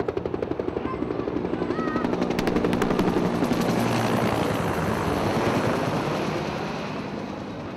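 Helicopter flying over, the fast even beat of its rotor blades growing louder to a peak a few seconds in, then fading away as it passes, its pitch dropping.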